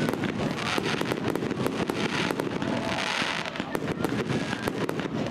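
Fireworks display: a dense, continuous run of bangs and crackles, several a second.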